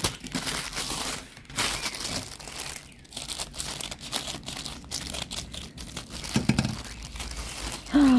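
Packaging crinkling and rustling in irregular bursts as it is handled and opened, with a short pitched sound near the end.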